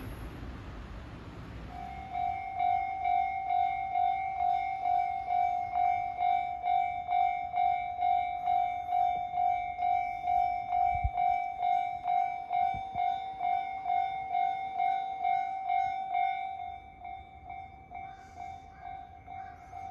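Japanese railway level-crossing alarm starting about two seconds in: an electronic bell tone repeating about twice a second, the warning that a train is approaching. It becomes much quieter about sixteen seconds in.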